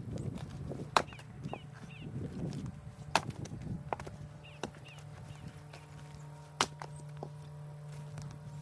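Firewood being chopped: three sharp strikes a few seconds apart, with lighter knocks between them. Small birds chirp faintly, and a low steady hum comes in about halfway through.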